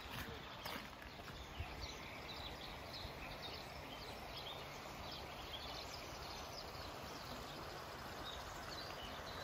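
Faint countryside ambience: small birds chirping here and there over a steady background hiss, with a couple of knocks in the first second.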